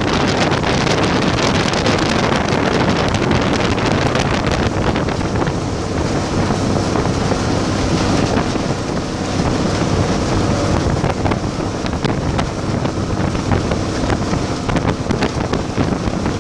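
Engine of a motorized outrigger boat (bangka) running steadily at cruising speed, with wind buffeting the microphone.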